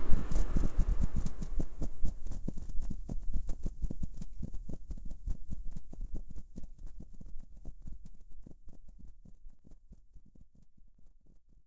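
Wings of a swarm of butterflies fluttering: many quick soft flaps, dense at first, then thinning out and fading away to nothing by the end.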